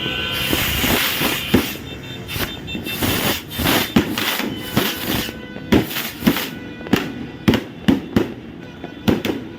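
Fireworks going off: a crackling first couple of seconds, then a rapid, irregular string of sharp bangs, about two a second, with music playing underneath.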